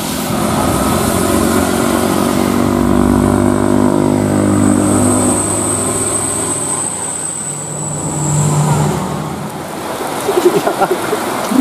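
Trucks passing close on a rain-soaked road: an engine running as it goes by and tyres hissing through the water on the tarmac, with a thin high whine in the middle.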